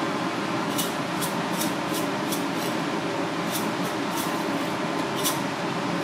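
Seasoning shaker shaken over fish fillets in a steel tray: about ten short, crisp shakes at roughly two a second, starting about a second in, over a steady background hum.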